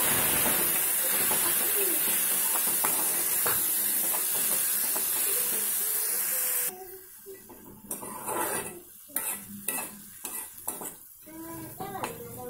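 Tomato purée and onions sizzling in hot oil in a metal kadai while a spoon stirs and scrapes the pan. The loud sizzle cuts off suddenly a little over halfway through, leaving separate scrapes and clinks of the spoon against the pan.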